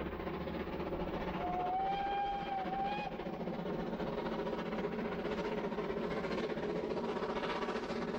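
Steam train working uphill, led by a small LMS 1F tank engine: a steady exhaust and rolling rumble, with one short steam whistle blast on a single note from about a second and a half to three seconds in.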